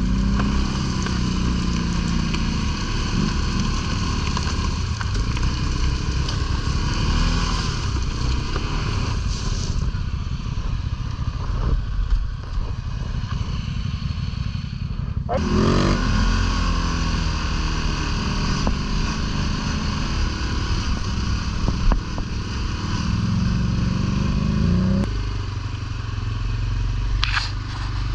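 ATV engine running while riding, its pitch rising and falling with the throttle, with rattles and knocks from the rough trail.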